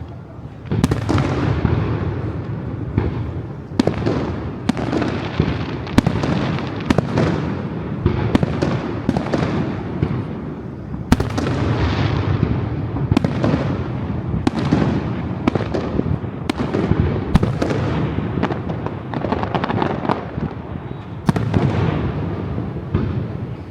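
Aerial fireworks going off in a rapid, continuous barrage: sharp bangs about once a second, each followed by crackling that dies away.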